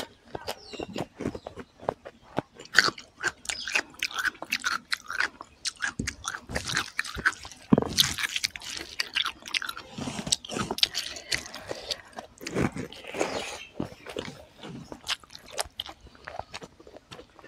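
Close-miked wet chewing and lip-smacking of a person eating rice and egg curry by hand, with many quick mouth clicks. Around the middle comes the soft squish of her fingers mixing rice with gravy.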